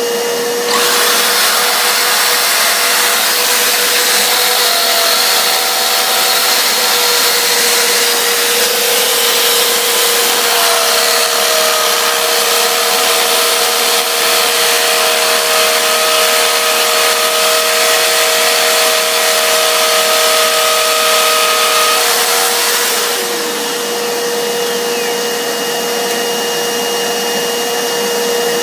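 Electric drill running steadily with a held motor whine as it bores into fireplace mortar and masonry. About three quarters of the way through, the cutting hiss drops away while the motor keeps spinning, as the drilling suddenly gets very hard and the bit stops biting.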